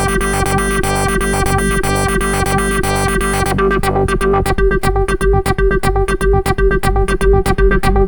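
ASM Hydrasynth wavetable synthesizer playing a factory preset: a rhythmic, fast-repeating pattern over held tones. About three and a half seconds in, the bright upper part drops away and a quick pulsing bass takes over.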